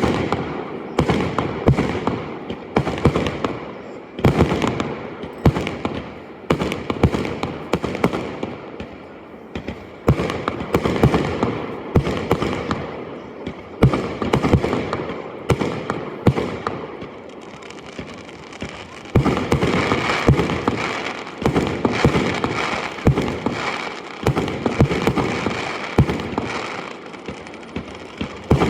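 Aerial fireworks bursting: a rapid run of sharp bangs and booms, sometimes several a second, with crackling between them and a denser flurry about two-thirds of the way through.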